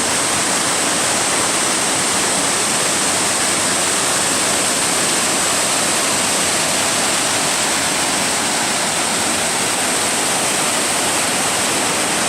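Waterfall pouring down onto rocks and into the stream at its base: a loud, steady, unbroken rush of water.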